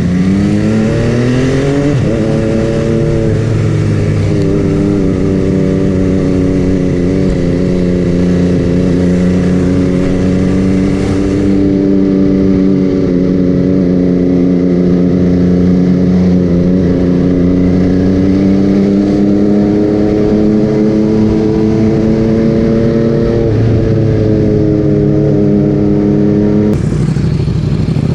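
MV Agusta Dragster 800's three-cylinder engine through a QD Power Gun exhaust, under way: it revs up in the first two seconds and shifts up, then holds nearly steady revs at cruise for a long stretch, with another shift near the end.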